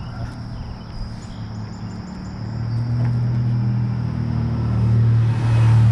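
A motor vehicle's engine approaching, a steady low hum that grows louder over the second half and is loudest near the end.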